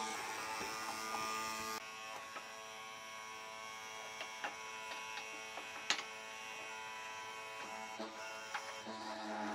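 Electric motor of a hollow-chisel mortising machine running with a steady buzzing hum. The chisel's cutting noise drops away about two seconds in, leaving the motor running, with a few light knocks.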